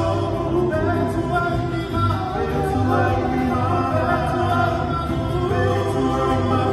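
Live band playing a Samoan song: a singer's voice over guitar and a steady bass beat.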